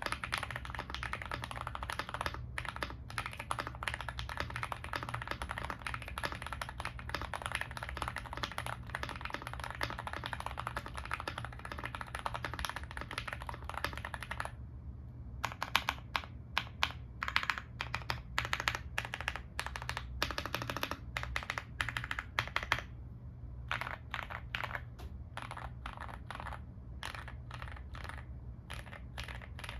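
Rapid continuous typing on a stock GMK81 mechanical keyboard with its factory foam, Gateron Yellow Pro 2.0 linear switches and double-shot ABS Cherry-profile keycaps. About halfway through the typing stops, and single keys are then struck one at a time with louder, separate clacks, as in a stabilizer test of the long keys.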